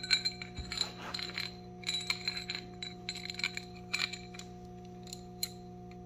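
Big Block Chevy timing chain and cam gear clinking and jingling as they are handled: bright metallic chinks and rattles in quick clusters, ending about five and a half seconds in.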